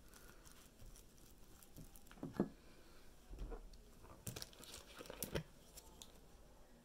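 Faint scattered clicks and scrapes of handling: a plastic spoon stirring a paste of flour and carrot juice in a ceramic bowl, then a plastic water bottle crinkling as it is picked up, with a few sharper knocks in the second half.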